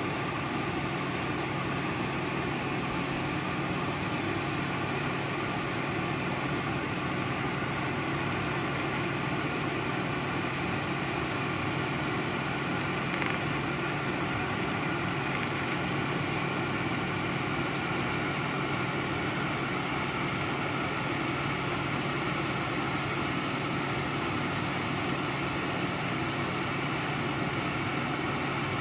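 2000-watt laser rust remover running: a steady machine hum with a high hiss, holding even throughout.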